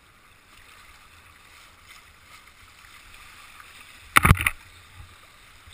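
River water rushing and splashing around a kayak running a shallow rapid, with a short loud burst of noise about four seconds in.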